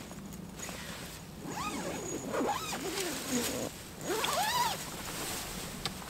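The zip on the door of an insulated pop-up tent being pulled open in two strokes. Each stroke gives a buzz that rises and then falls in pitch as the pull speeds up and slows down.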